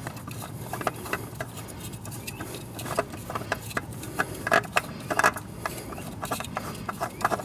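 Irregular light clicks, taps and knocks of metal as a loosened oil filter is unscrewed by hand from a Honda Civic engine block, with a few louder knocks in the second half.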